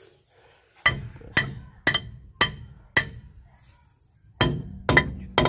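Truck brake drum being struck on the hub: eight sharp, ringing metal knocks about two a second, five in a row, a short pause, then three more, as the drum is tapped to seat it after new shoes are fitted.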